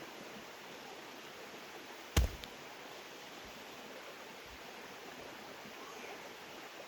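Creek water flowing steadily. About two seconds in there is one sharp knock, with a fainter one just after it.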